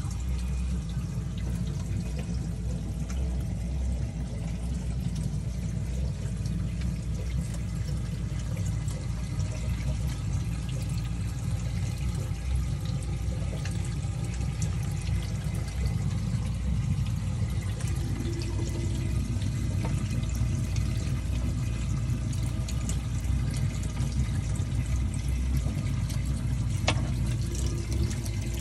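Water pouring and splashing steadily into a saltwater aquarium's filter area, which is overflowing.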